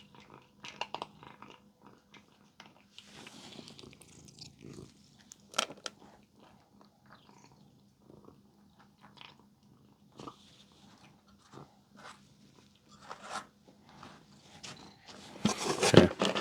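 A dog crunching and chewing treats in short, irregular crunches, with a louder burst of noise near the end.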